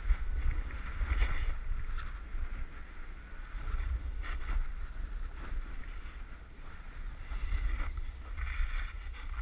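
Wind buffeting a helmet-mounted action camera's microphone during a fast descent on groomed snow, a low rumble with a rushing hiss of snow under the rider that surges every second or two.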